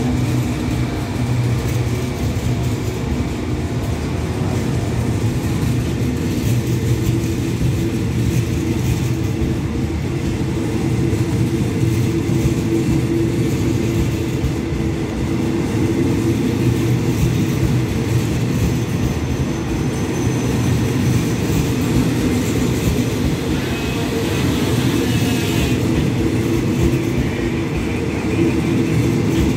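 Passenger coaches of a Thai express train moving slowly alongside the platform: a steady low rumble and hum of the train, with faint higher squealing about 24 seconds in.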